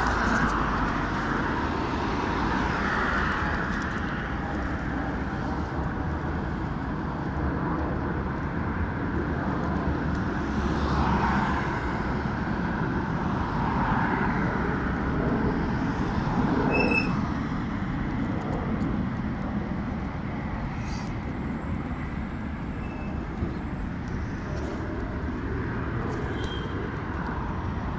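Steady city road-traffic noise, an even rumble of passing vehicles.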